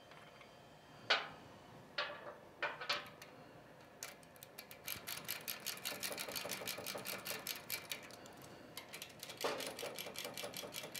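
Ratcheting refrigeration service-valve wrench turning the stems of a Copeland K-model compressor's suction and discharge service valves in to front-seat them. A few separate clicks and knocks come as the wrench is fitted. From about four seconds in there is a steady run of rapid ratchet clicks.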